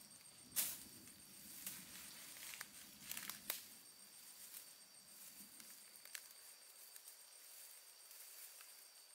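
Quiet rustling and crinkling with scattered sharp clicks, over a faint steady high-pitched tone.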